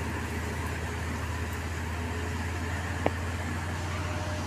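A steady low rumble, with a single sharp click about three seconds in.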